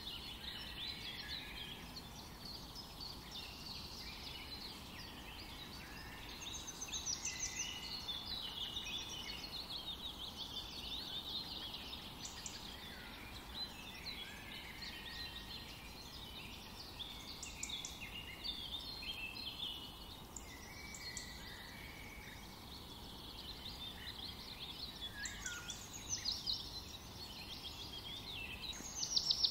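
Several songbirds chirping and singing: a continual run of short, high chirps and quick trills, busiest in clusters rather than at an even rhythm.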